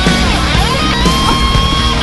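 Rock music with electric guitar; a lead guitar plays sustained notes that bend up and down.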